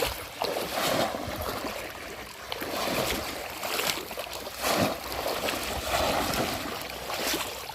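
Shallow water sloshing and splashing in irregular surges, churned by people wading with polo bamboo fish traps.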